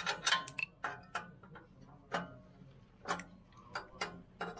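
Irregular sharp metallic clicks and taps as a small screw and fingers work against the tip of a chrome motorcycle exhaust pipe, fitting a dB killer baffle.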